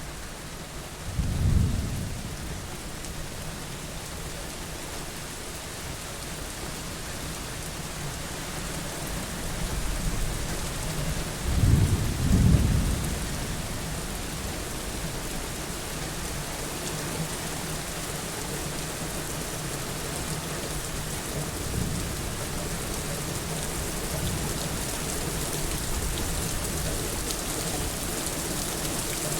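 Steady rain falling, an even hiss, with low rumbles rising out of it: a short one near the start and a longer, louder double rumble about twelve seconds in.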